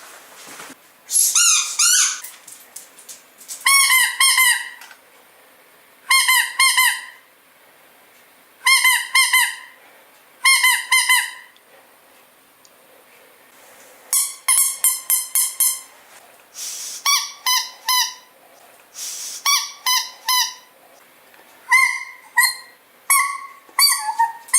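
Dog squeaky toy squeezed over and over, in short bursts of several quick squeaks each, with a pause of a second or two between bursts.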